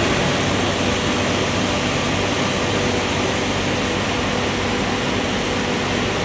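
Coal-fired boiler plant machinery running steadily: an even, dense mechanical noise with a faint steady hum.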